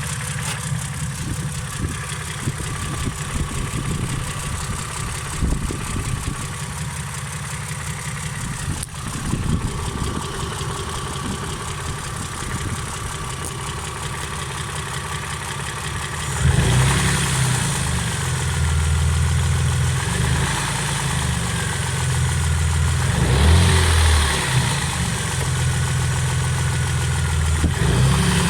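Car engine running at idle with a knock, which the owner asks about as a possible connecting-rod knock. A little past halfway it runs louder and swells a couple of times.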